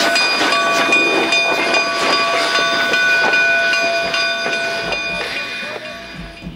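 K-36 narrow-gauge steam locomotive No. 487 and its tender rolling past at close range: wheels clicking over the rails, with several steady high ringing tones above a noisy rumble. The sound fades away near the end as guitar music comes in.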